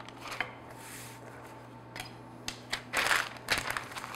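Wooden rolling pin rolling dough between sheets of parchment paper. The paper rustles and crinkles in short stretches, with a few light clicks, loudest about three seconds in.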